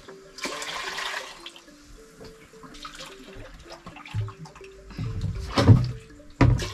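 Cold water being poured from a plastic jerrycan and splashing into a cooking pot in a few pours, the loudest near the end.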